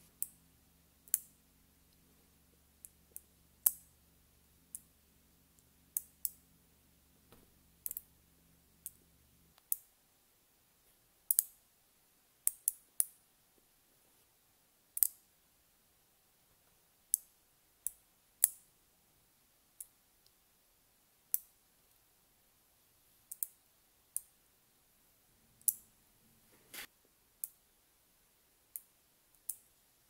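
Neodymium magnet balls (Neoballs) clicking sharply as clusters of them snap together in the hands. The clicks come irregularly, about one a second, some in quick pairs.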